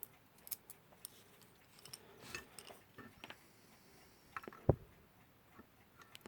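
Small scattered metal clicks and taps of a screwdriver and a tiny screw being handled and fitted into an alarm clock's frame, with one sharper click a little after four and a half seconds in.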